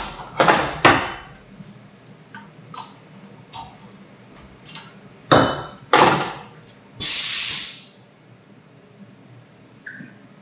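Metal handling sounds inside a CNC mill enclosure: sharp metallic knocks and clicks as the machined copper box is taken out of the steel vise, two of them louder a little past halfway. The low rumble of the machine dies away in the first second, and near the end there is a loud hiss lasting about a second.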